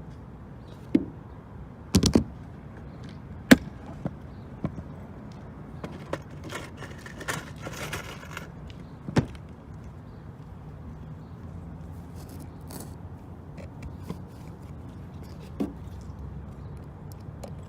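Hand tools and small metal parts being handled during a workbench repair: a handful of sharp clicks and knocks spread out, with a stretch of rattling and scraping in the middle.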